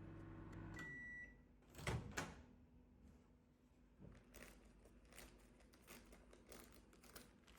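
Faint sounds of a microwave oven: a low hum as it runs, which stops about a second in with a single high beep as the cycle ends. Then two short knocks of the door opening, and a few faint ticks.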